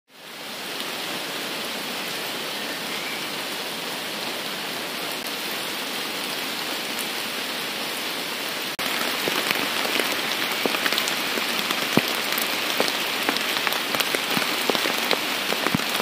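Rain pouring down in a steady hiss. About nine seconds in there is a cut to a louder patter, full of sharp individual drop hits.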